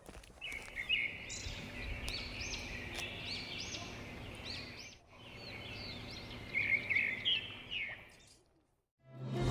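Birds chirping and singing in quick high whistled notes, in two stretches that stop about eight seconds in.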